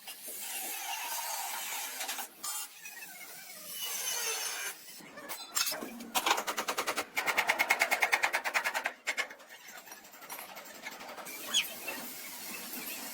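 A hand tool scraping and rubbing on car-body metal, then a fast, even run of strokes, about seven a second for some three seconds, near the middle.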